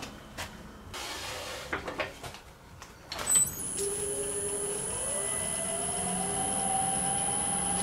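A few light knocks, then a clunk about three seconds in, followed by a woodturning lathe's motor starting and spinning up: a hum rising slowly in pitch, with a steady high whine over it.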